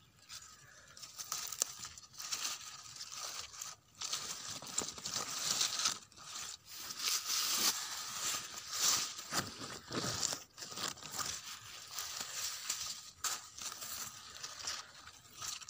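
Tomato leaves and stems rustling and brushing against the phone as it is pushed through dense tomato plants: an irregular crackling rustle that comes and goes, with short pauses.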